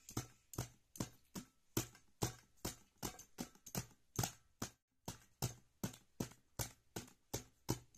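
A small child's hands slapping two empty metal formula tins as a makeshift tabla, in a steady beat of about two or three hollow strikes a second, with a brief pause about five seconds in.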